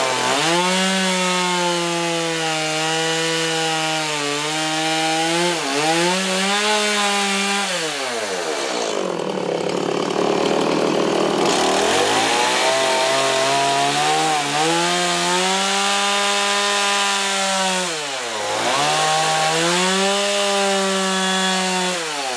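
Stihl two-stroke chainsaw cutting into a wooden carving block at high revs, its pitch sagging each time the chain bites. The engine falls away toward idle about eight seconds in, revs back up a few seconds later for more cutting, dips again briefly, and falls off near the end.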